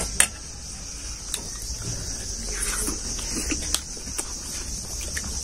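Insects chirring in a steady high drone, with a few sharp clicks and taps from the eating.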